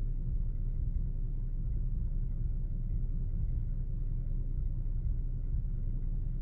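Steady low rumble heard inside a car cabin, a car idling while stopped in traffic.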